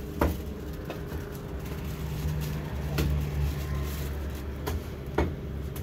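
Several sharp metal knocks and clinks on a steel grill grate as a foil-wrapped fish is set down on it, the loudest just after the start and near the end, over a steady low motor rumble.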